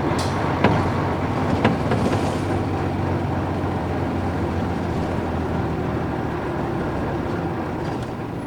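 Nissan Diesel UA440 city bus's PF6 diesel engine running steadily while the bus drives, heard from inside the bus with road noise, two sharp clicks about a second apart near the start, and the sound easing slightly near the end.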